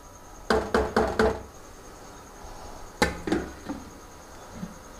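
Lid being set onto a cooking pot: a quick run of four clinks about half a second in, then a sharper knock at about three seconds followed by two lighter taps.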